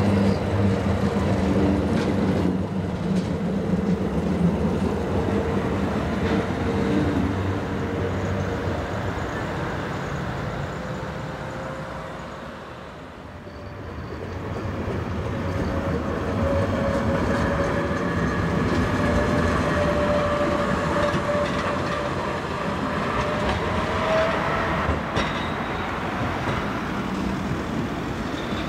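Trams running on street track. One passes close by and fades away over about thirteen seconds, then rail and motor noise builds again from another tram, with a whine that rises in pitch before easing off near the end.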